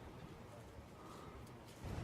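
Near silence: a faint low hiss of room tone, with a brief faint steady tone about halfway through.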